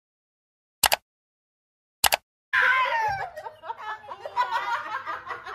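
Dead silence broken by two short clicks, then from about two and a half seconds in, several women laughing and shrieking together.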